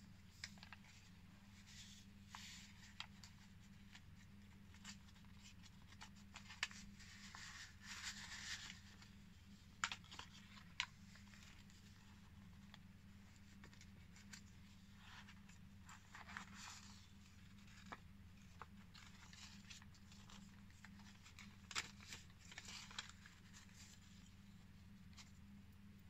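Faint rustling and crinkling of paper pages being turned and handled in a handmade junk journal, with scattered light clicks and taps, over a steady low hum.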